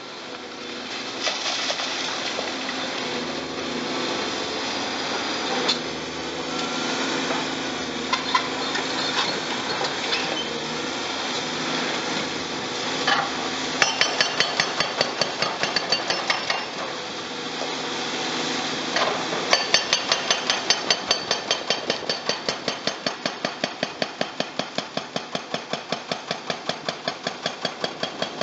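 Excavator diesel engines running, with scattered crashes, then from about halfway a hydraulic breaker on a Caterpillar 326F excavator hammering concrete in rapid, evenly spaced blows, several a second; it stops briefly and starts again.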